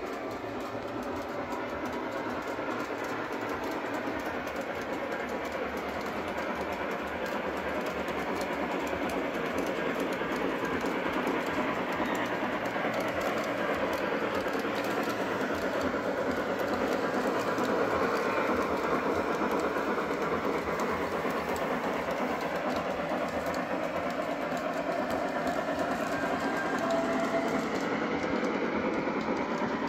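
Lionel Legacy O-gauge model of a Baldwin 2-10-0 steam locomotive running with passenger coaches on three-rail track: a steady rolling clatter of wheels on the rails, mixed with the locomotive's built-in steam sound effects.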